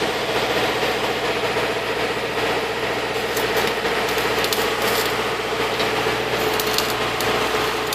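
Welder laying a bead on 3/16 steel plate along a truck frame's bottom rail: a continuous crackling sizzle with a few sharper pops, over a steady hum.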